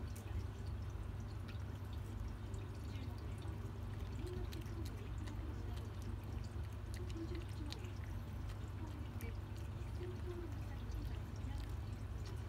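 A cat eating soft flaked fish: scattered small wet chewing and licking clicks over a steady low hum.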